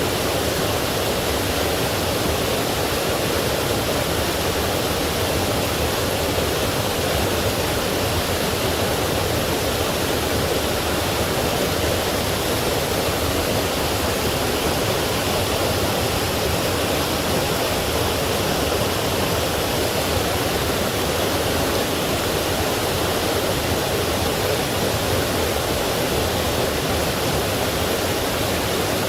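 Forest stream tumbling over rocks and a small waterfall: a steady, unbroken rush of water.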